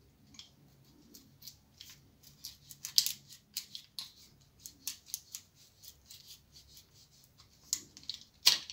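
Utility knife blade cutting into the base of a green mango stem cutting to split it in an X: a run of short, crisp cuts and scrapes, a few a second, with a sharper one near the end.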